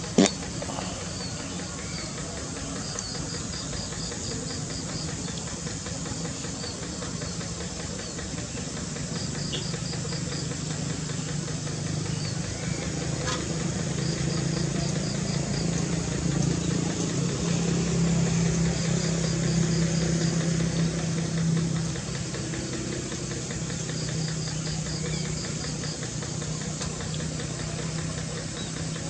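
A two-wheel hand tractor's single-cylinder diesel engine running steadily. It grows louder about halfway through and eases back about three-quarters of the way in. Insects chirp in short rapid trains over it, and there is a sharp click right at the start.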